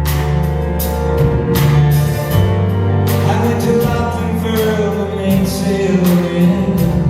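Live band playing a song's instrumental passage between sung lines, with a steady beat.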